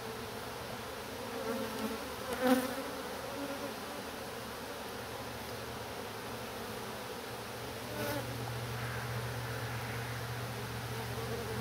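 Honey bees buzzing steadily at a hive entrance narrowed to its smallest reducer opening, where they are crowding in and out. The hum grows louder about eight seconds in. A short, louder sound stands out about two and a half seconds in.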